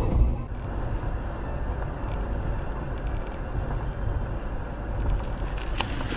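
Steady road and engine noise inside a Mercedes-Benz car's cabin as it drives along, with a few faint ticks in the last second or so.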